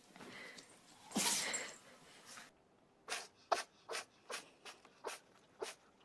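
An animal sneezing loudly once, about a second in. From about three seconds in, a quick run of short, sharp sneezes follows, about two or three a second.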